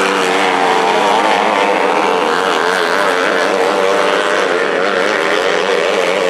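Several 250cc winged micro sprint cars racing together on a dirt oval, their small high-revving engines overlapping and wavering up and down in pitch as they go through the turns.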